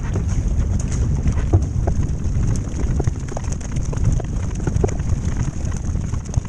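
Wind buffeting a bow-mounted camera's microphone as a racing kayak is paddled hard, with water rushing past the hull and a scatter of splashes as the paddle blades dip in and pull out on each stroke.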